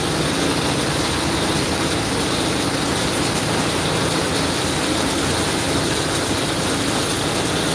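Water tanker truck's engine and pump running steadily while a hose sprays water onto plants, a continuous even noise with no change.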